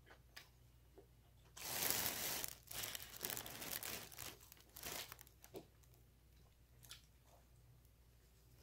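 Plastic bag crinkling right by the microphone: a loud rustle starting about one and a half seconds in, then broken crinkles for about three seconds more, and a couple of faint clicks after.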